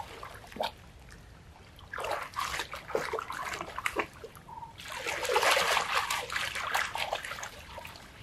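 River water splashing and trickling as it is scooped with a coconut shell and thrown over an elephant lying in the shallows. The splashing starts about two seconds in and is heaviest from about five seconds in.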